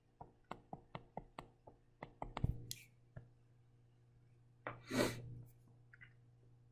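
Light clicks and taps of a stylus on a touchscreen while handwriting, about eight quick ones in the first two seconds and a few more around two and a half seconds. Then, about five seconds in, one sharp breath.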